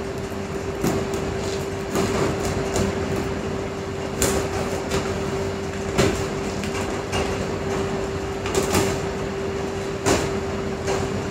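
Cardboard camcorder box being opened by hand: scraping and rustling of the packaging, with about six sharp snaps or knocks spread through it, over a steady hum.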